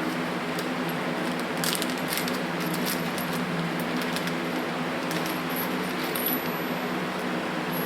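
Small metal parts clinking and rattling in scattered light clicks while carburetor parts are handled, over the steady hum of a shop fan.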